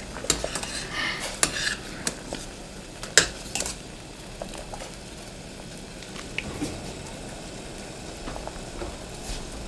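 Anchovy-and-kelp stock boiling hard in a stainless steel pot, a steady bubbling, while a mesh strainer lifts the spent ingredients out, clinking and scraping against the pot several times in the first few seconds; the sharpest clink comes about three seconds in.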